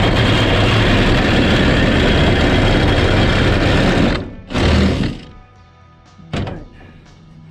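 Jigsaw cutting through a van's thin sheet-metal roof, a loud dense rattling buzz that stops abruptly about four seconds in, followed by one short burst before it falls quiet. The sudden stop marks the blade snapping in the cut.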